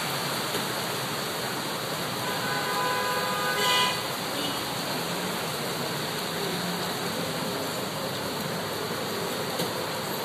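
Steady hiss of heavy rain and traffic moving through flood water, with a vehicle horn honking for about two seconds, starting about two seconds in and loudest just before it stops.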